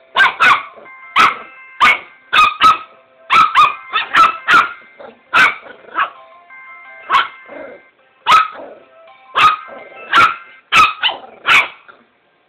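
Small dog barking sharply and repeatedly, about twenty barks in irregular bursts, at a cell phone. A simple electronic ringtone melody plays steadily from the phone between the barks.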